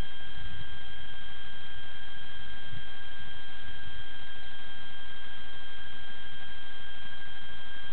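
Steady high electrical whine with an overtone or two, over a constant hiss, picked up by the small onboard camera on the parked RC plane. An uneven low rumble runs beneath it, and the pitch does not change, so no motor is spinning up.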